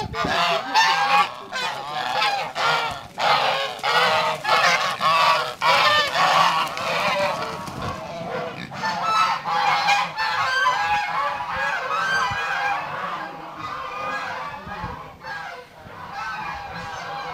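A flock of domestic geese honking, many calls overlapping in a continuous clamour that grows fainter over the last few seconds.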